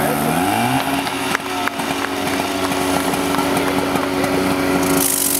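Portable fire pump's engine running hard while driving water through the hose lines. Its pitch rises about half a second in, then holds steady, with a couple of knocks early on.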